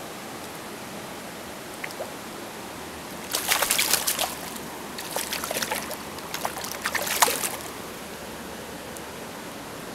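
A brown trout thrashing in shallow water, splashing in three bursts between about three and seven and a half seconds in, over the steady rush of a stream.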